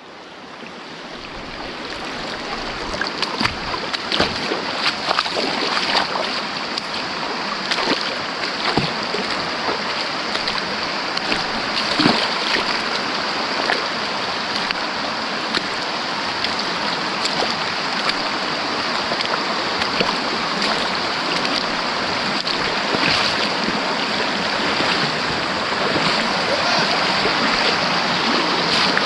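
Stream water flowing over rocks: a steady rush dotted with frequent small splashes and ticks, fading in over the first few seconds.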